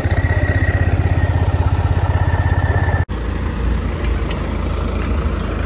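John Deere tractor's diesel engine running, heard from the driver's seat as a fast, even pulse. After a cut about three seconds in, a tractor engine runs more steadily while pulling a potato planter, with a few light clicks.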